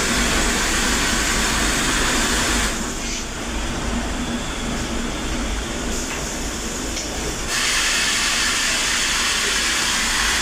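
Steady rushing hiss of a commercial kitchen's air conditioning or ventilation. It goes duller for a few seconds in the middle, then comes back.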